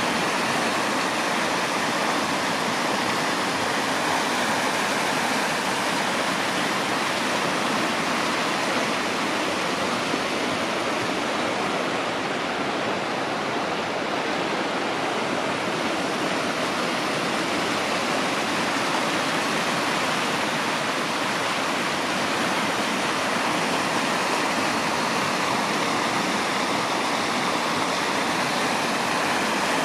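Steady, unbroken rushing noise like running water, even in level throughout.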